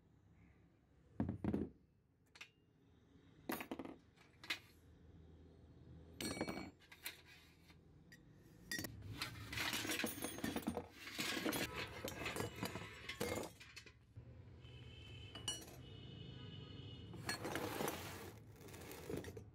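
Rusty steel wrenches and tools clinking against a metal pail and each other: a few separate knocks as pieces are lifted out, then a long clattering run about nine seconds in as the pail is tipped over and the tools spill out, and more clatter near the end as they are handled.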